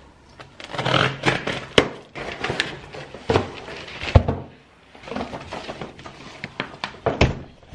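Paper rustling and sliding as calendars are slipped into paper envelopes, with sharp knocks and taps against a wooden tabletop, the loudest about two and four seconds in and near the end.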